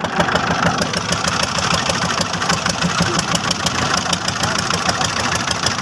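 An engine running steadily at a constant speed, with a rapid, even pulse.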